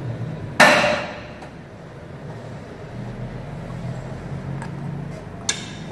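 A sharp click about half a second in, with a short ringing tail, and a smaller click near the end, from hands working the thread path and parts of an industrial overlock machine that is switched off.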